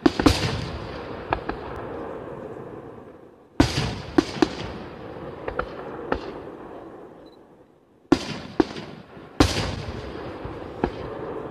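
Aerial firework shells bursting in a display: sharp bangs in groups every few seconds, each followed by a long rolling echo that fades away.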